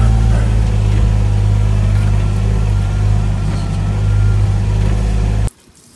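Farm utility vehicle's engine running steadily at low speed as it drives over a muddy track, cutting off abruptly near the end.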